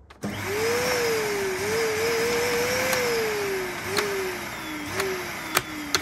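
Numatic Henry cylinder vacuum cleaner's motor starting up with a rising whine and running, then slowly dropping in pitch. From about four seconds in, sharp clicks come from the rocker switch, each with a brief lift in the motor's pitch. The switch is faulty and does not stay in the on position.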